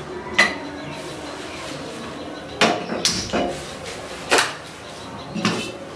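Five or so sharp knocks and clinks of metal cookware and utensils being handled at a gas stove, spread out with short pauses between.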